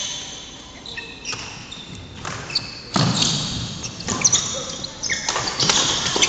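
Badminton rally on a wooden indoor court: sharp cracks of rackets striking the shuttlecock, mixed with shoes squeaking and thudding on the floor. The loudest hit comes about three seconds in, as play gets going.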